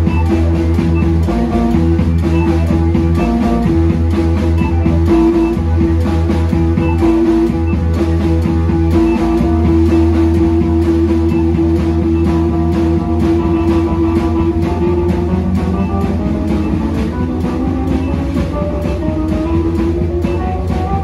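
Live instrumental music from vibraphone and keyboards: mallet-struck vibraphone notes over a heavy keyboard bass and a long held tone, with a steady ticking beat. About two-thirds of the way in, a keyboard note bends upward in pitch.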